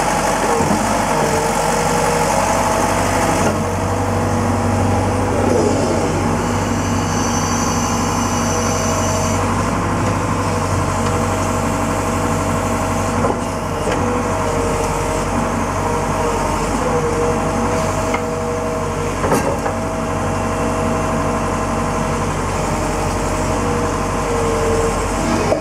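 Liebherr R911B tracked hydraulic excavator working: its diesel engine runs steadily with a whine that wavers in pitch as the boom and bucket move, and a few sharp knocks as the bucket digs.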